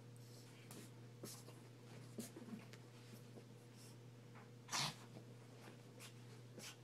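Two Pekingese dogs playing on carpet: faint scuffles and soft clicks, then one short sneeze-like snort from a dog nearly five seconds in.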